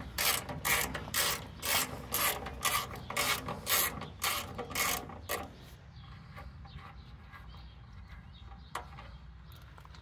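Hand socket ratchet clicking in quick, regular strokes while backing off a fastener on a motorcycle's rear fender. The clicking stops about five and a half seconds in, leaving only a couple of faint single clicks.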